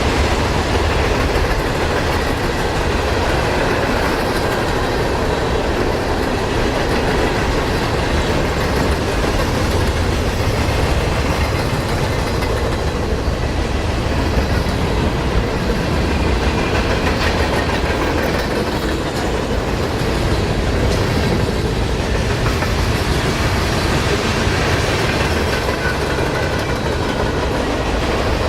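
Freight train rolling past, a steady loud noise of its wheels running on the rails.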